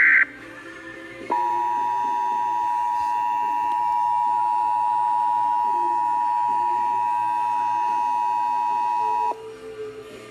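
Emergency Alert System broadcast: the tail of a SAME header data burst, then about a second later the two-tone EAS attention signal sounds steadily for about eight seconds and cuts off abruptly, marking the start of a severe thunderstorm watch alert.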